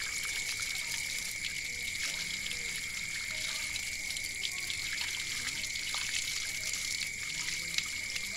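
Running water pouring over a snake carcass held in the hands and splashing onto the ground as the meat is rinsed, with small splashes and drips. A steady high-pitched tone runs underneath throughout.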